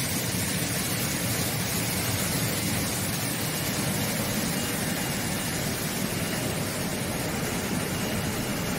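Air-bubble vegetable washing machine running: a steady rush of churning water and spray, with machinery running underneath.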